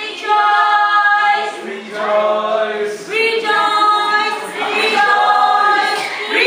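A mixed group of men's and women's voices singing together without accompaniment, in held notes that come in short phrases with brief breaks between them.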